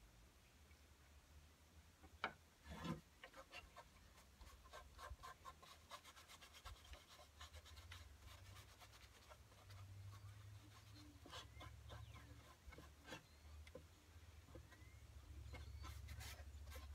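Faint rubbing and light scratching of a cloth rag wiping wood stain into the grain of a wooden produce box, with two soft knocks about two and three seconds in, over a low rumble.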